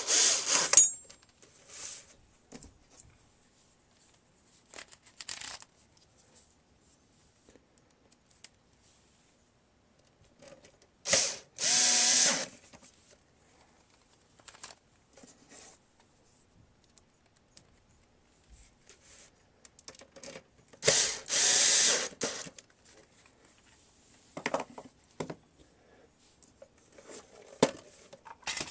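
Power screwdriver running in three short runs of about a second each, roughly ten seconds apart, driving screws back in, with small clicks and handling knocks between the runs.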